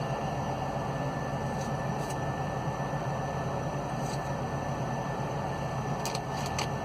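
Steady low hum and hiss inside a truck cab, with a few light clicks as a knife is wiped clean and utensils are handled.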